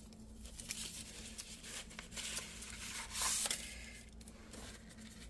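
Rolled paper poster rustling and crinkling in the hands as tape is pulled off it, with a louder rustle about three seconds in.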